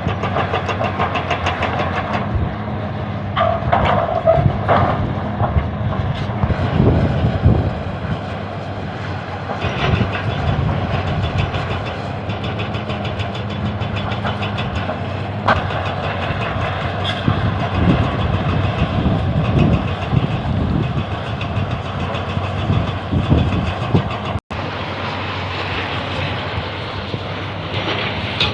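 Excavator working: its diesel engine runs steadily under a rough metallic clatter and clanking.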